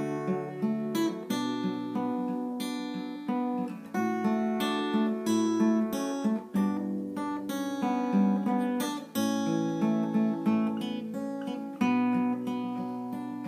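Black cutaway acoustic guitar, capoed, played fingerstyle: a slow instrumental melody picked over chords, with notes left to ring.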